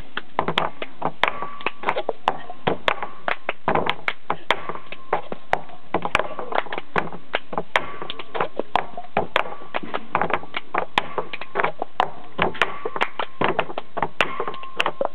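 Cup-game rhythm: hand claps mixed with reusable plastic festival cups tapped and set down on a wooden table, two players going in a quick, even pattern of sharp knocks.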